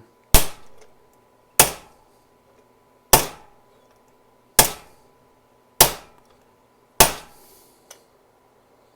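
Six hammer taps on a bent metal cable bracket of a carburetor, one every second and a half or so, each with a short ring, knocking the bracket straight.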